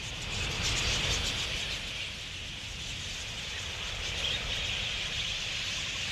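A large flock of wild budgerigars chattering, a dense, continuous mass of high calls.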